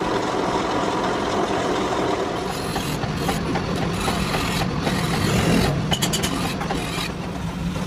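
Metal-cutting machinery running with a steady hum: a gear-hobbing machine cutting helical gear teeth, then a lathe turning while a flat file scrapes against the spinning steel workpiece.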